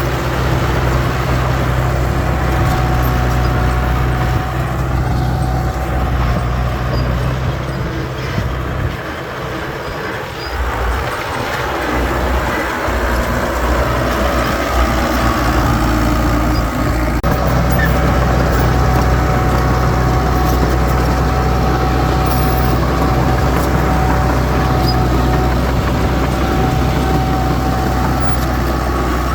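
Heavy diesel engines of earth-moving machinery (dump trucks and bulldozers) running steadily with a low drone and a higher whine; the low drone drops away for a few seconds around ten seconds in, then returns.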